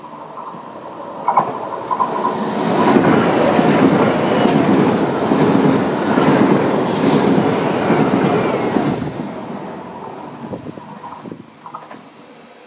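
An SBB ETR 610 tilting electric multiple unit passes through the station at speed. Its wheel-on-rail noise builds about a second in and stays loud for several seconds with rapid clatter from the wheels. It then fades away as the train recedes.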